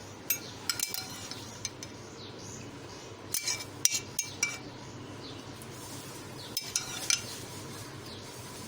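A metal spoon clinking against a metal pot while milk is stirred and served: scattered sharp, ringing clinks, bunched about a third of the way in and again near the end.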